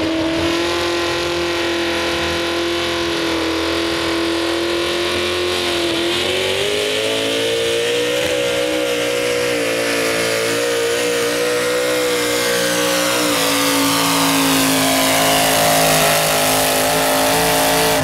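V-8 engine of a modified pulling tractor at high revs under full load, dragging a weight-transfer sled. The pitch holds steady, climbs about six seconds in, then drops back somewhat in the last few seconds as the load grows.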